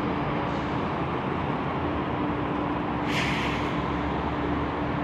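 Airbus A330 jet engines running at taxi power across the airfield: a steady rumble with a steady hum in it. A short hiss cuts in about three seconds in.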